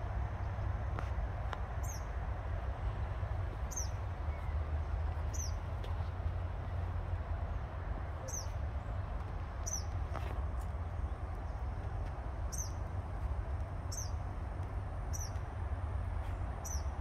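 A small bird repeating a single short, high chirp that slides down in pitch, about once every second and a half to two seconds, over a steady low rumble.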